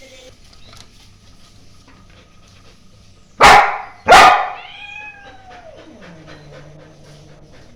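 German shepherd puppy barking twice in quick succession about three and a half seconds in, the second bark trailing into a call that falls in pitch and then holds low.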